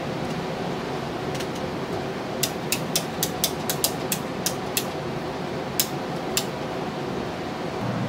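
A run of about a dozen sharp clicks, roughly four a second, from hand-tool work on a bathtub's plumbing fittings, over a steady rushing hum.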